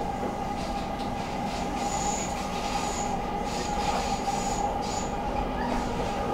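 Stockholm metro train running, heard from inside the car: a steady rumble with a humming tone. From about two seconds in there are several short, high-pitched squeaks.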